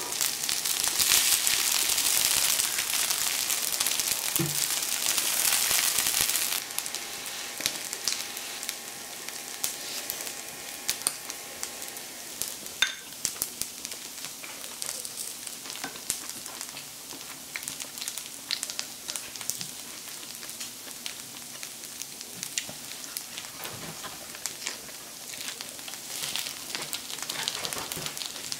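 Pork belly fried rice sizzling on the hot plate of an electric smokeless grill. The sizzle is loud for about the first six seconds, then drops to a quieter, steady crackle with scattered light clicks.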